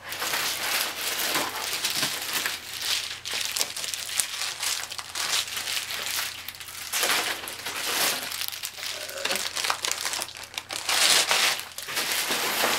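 Plastic packaging crinkling and rustling as items are unwrapped and handled, in irregular bursts, loudest near the end.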